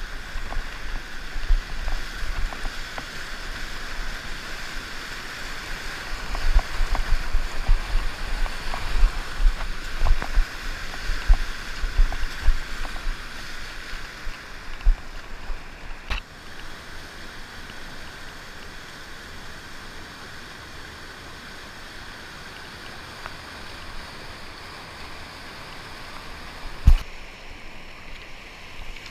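Floodwater rushing past a kayak on a river running in flood, with splashes and low buffeting that are choppier in the first half and calmer later. A single sharp knock comes near the end.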